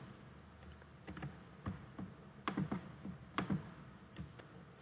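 Faint, scattered clicks of a computer mouse and keyboard, about a dozen in all, as desktop files are selected and deleted.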